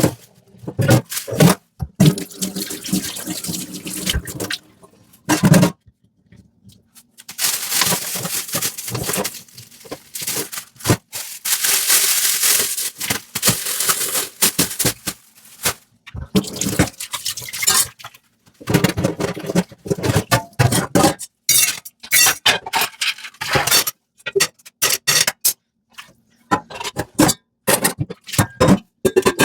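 Dishes being washed by hand at a kitchen sink: tap water running in long stretches, broken by many short knocks and rubbing sounds, with a brief pause about six seconds in.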